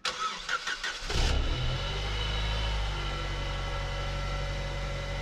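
A snowbound Saab's engine is cranked and catches about a second in, then settles into a steady idle on a cold start.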